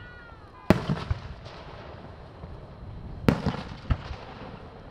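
Aerial fireworks shells bursting: two loud booms about two and a half seconds apart, each followed shortly by a smaller report and a brief crackle.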